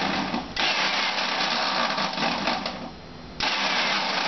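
Electric juicer motor whirring as it chops broccoli. It cuts out briefly about half a second in, winds down near three seconds, and starts up again.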